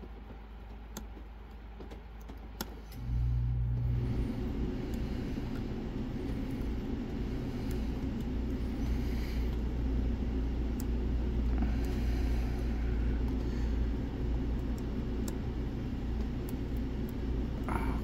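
Faint metallic clicks of a lock pick working the pins of a padlock. About three seconds in they are covered by a steady low motor rumble that runs on.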